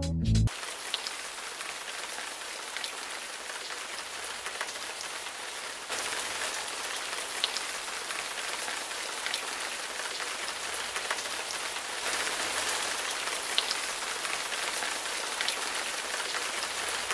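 Rain falling on a car's windshield and body, heard from inside the car: a steady hiss with scattered sharper ticks of single drops. The level steps slightly about six seconds in and again about twelve seconds in.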